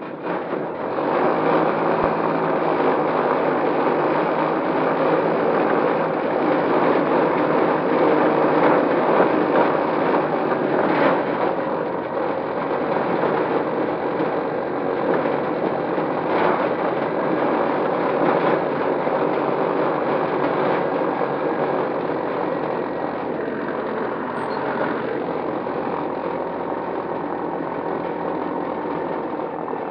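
Electric ultralight's motor and propeller running steadily as it taxis over grass, heard from the cockpit. The sound swells about a second in and eases slightly toward the end.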